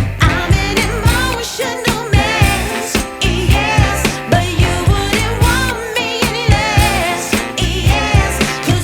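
Background pop song: a sung vocal over a steady beat.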